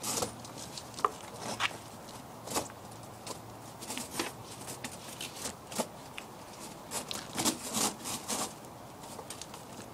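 Metal tire chains clinking and rattling in irregular clicks as they are adjusted and tightened around a car tire, with a denser run of rattles near the end.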